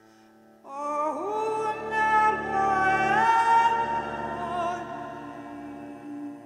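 A woman singing long held notes with vibrato, in an operatic style. Her voice comes in with an upward scoop about a second in, climbs higher about three seconds in and then slowly fades, over a soft, steady low drone.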